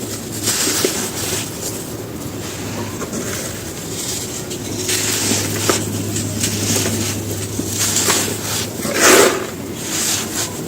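Dry sand-cement slabs and cones being crumbled, a gritty crunching that comes in several bursts, the loudest about nine seconds in.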